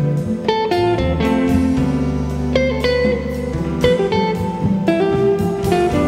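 Instrumental jazz music: a guitar picks a slow melody of single notes, each ringing out and fading, over held low chord tones.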